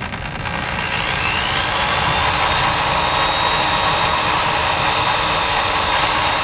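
Power drill spinning up over about the first second, then running steadily with a high whine as its bit bores into a seized broken bolt in the output shaft of an NP249 transfer case.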